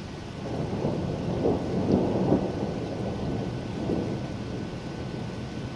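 Thunder rumbling over steady rain. The rumble swells about half a second in, is loudest around two seconds in, and dies back by about four seconds.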